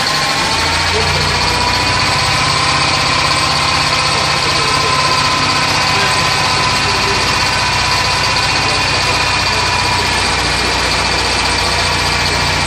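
Small homemade model engine running steadily, with a low hum joining about half a second in.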